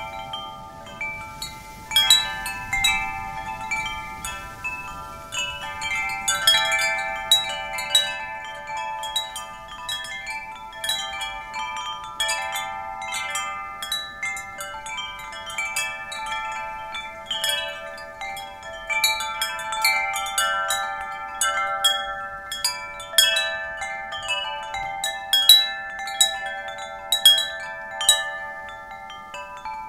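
Wind chimes ringing, struck irregularly several times a second, their tones overlapping and ringing on. A short lull just after the start ends about two seconds in, when the strikes pick up again.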